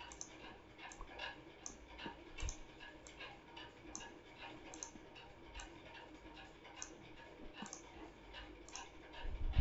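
Faint computer mouse clicks, sharp and irregular, about one or two a second, as walls are selected and dragged in a CAD program.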